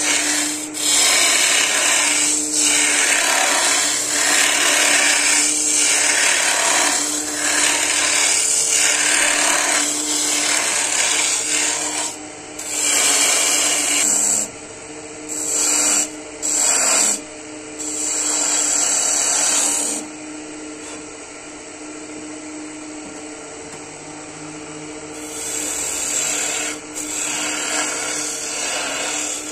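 Wood lathe motor running with a steady hum while a hand-held turning tool scrapes and cuts the spinning wood in loud passes. After about twelve seconds the cutting stops and starts several times. Then it pauses for a few seconds, leaving only the motor hum, before it resumes more lightly near the end.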